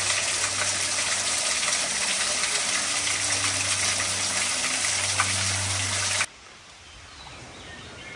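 Loud, steady rush of creek water tumbling over rocks, cutting off suddenly about six seconds in.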